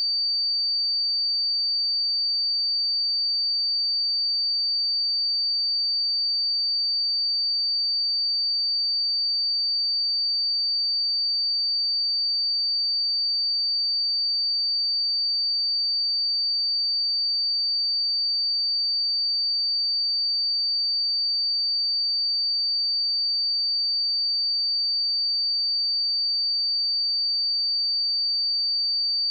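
A single pure sine-wave test tone at 4612 Hz, held steady at one pitch and one loudness: a high, constant beep used for checking speakers and headphones.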